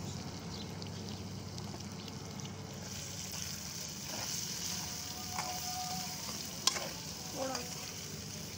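Diced potatoes sizzling as they fry in an aluminium karahi over a wood fire, stirred with a metal spoon. The sizzle grows louder about three seconds in, and the spoon gives one sharp clink against the pan about two-thirds of the way through, with a few lighter scrapes after.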